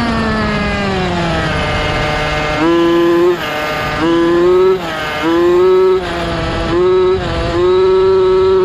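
Losi 5ive-T 1/5-scale RC truck's two-stroke petrol engine, heard from on board, on a speed run with new 58/21 gearing. The engine note falls as the truck slows, then rises in four short bursts of throttle and holds at a steady high pitch near the end.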